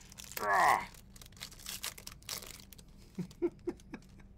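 1991 Pro Line Portraits football cards being handled and flipped through, with paper crinkling and short rustles. A brief pitched sound falling in pitch about half a second in is the loudest moment.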